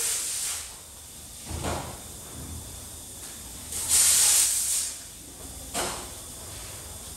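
A long-handled tool swishing as it is pushed and scraped across a wet, muddy floor, clearing flood mud and water, in strokes about a second long. There are a couple of short knocks between the strokes.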